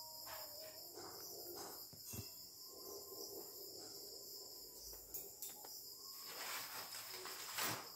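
Faint, steady high-pitched trilling of crickets, with soft rustling handling noise near the end.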